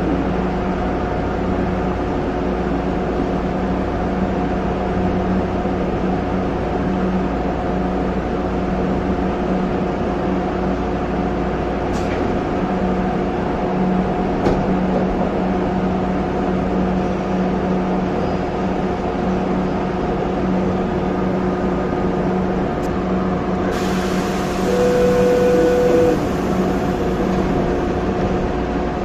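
Inside the driver's cab of a Mexico City Tren Ligero light-rail train as it pulls into a station: a steady electrical hum with a couple of clicks. About 24 seconds in comes a hiss and a short steady beep lasting about a second and a half.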